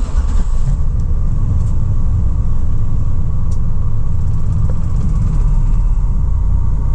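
2004 GMC Savana 3500 van's engine starting up and then idling steadily, a starting-up without trouble.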